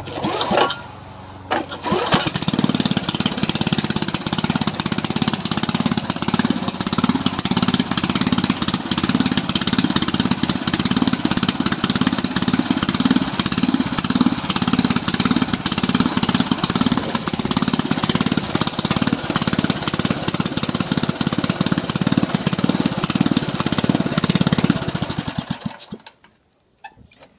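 1979 Toro lawnmower's small engine pull-started with its recoil cord, catching after two pulls about two seconds in. It then runs steadily, before dying away and stopping near the end.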